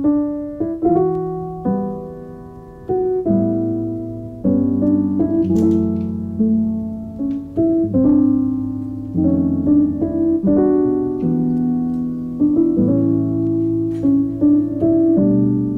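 Background piano music: a gentle melody over chords, each note struck and fading.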